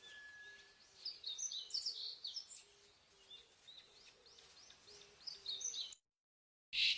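Wild birds chirping and singing in a bamboo forest, many quick high calls overlapping over a faint outdoor background. The sound drops out completely for a moment near the end, then comes back louder.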